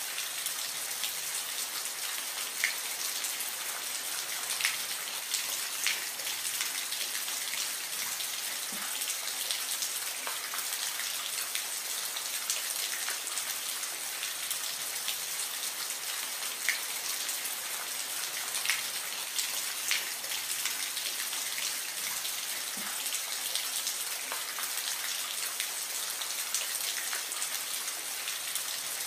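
Soft, steady rain: a constant high hiss with separate drops ticking every second or so.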